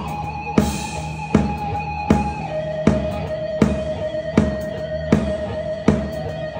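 Live amplified bağlama and drum kit playing a grani dance tune: a heavy drum beat lands about every three-quarters of a second under long held melody notes, the melody stepping down to a lower note about two and a half seconds in.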